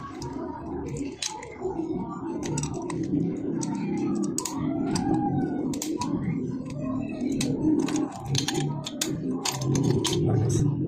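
Repeated sharp clicks and small metal knocks of a doorknob lockset being handled and tried, over a steady low background murmur.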